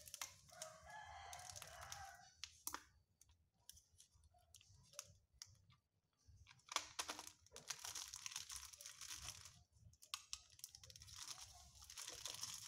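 Thin plastic bag crinkling and rustling in three spells as it is handled and its tied top worked open, with scattered sharp crackles and quiet gaps between.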